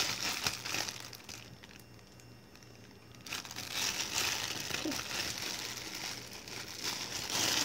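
Plastic lettuce packaging crinkling as it is handled and pulled at to get it open, in two stretches with a quieter pause of about two seconds between them.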